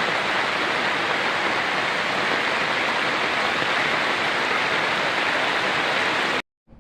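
Heavy rain falling, an even, steady rush of water noise, which cuts off abruptly about six seconds in.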